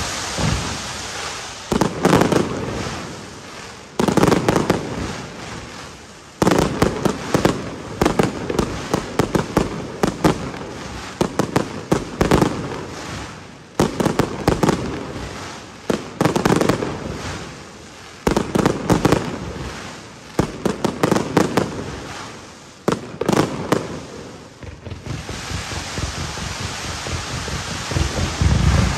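Aerial firework shells from a Pirotecnia Tomás fireworks castle bursting about every two seconds. Each burst is a sharp bang followed by a rapid crackle that dies away. Near the end the bangs give way to a steadier rushing crackle that grows louder.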